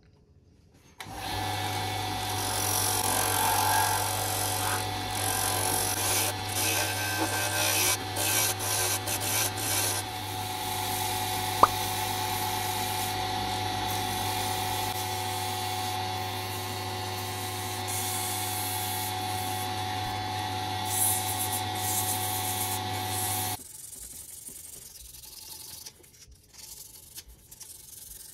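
Small wood lathe motor running with a steady hum while abrasive work goes on against the spinning maple-and-epoxy pen blank: rough, uneven scratching for about the first ten seconds, then a steadier dry-sanding hiss, with one sharp tick partway through. About 23 seconds in the lathe stops, leaving quiet rustling.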